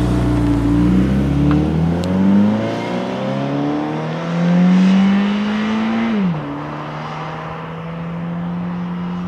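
2013 Subaru BRZ's 2.0-litre flat-four boxer engine accelerating hard away, its note rising through the gears and loudest about five seconds in. About six seconds in an upshift drops the pitch, leaving a steadier, fainter note as the car pulls into the distance.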